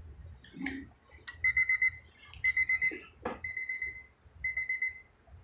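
Vintage Cartier Santos Jumbo clock's battery-powered alarm beeping: groups of four or five quick high-pitched beeps repeating about once a second, starting about a second and a half in after a couple of handling clicks. The alarm goes off as the alarm hand reaches the set time, showing it works after calibration.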